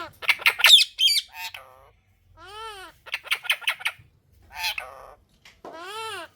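Indian ringneck parrot calling: three arching, rise-and-fall whistled calls with rapid bursts of short squawky chatter between them.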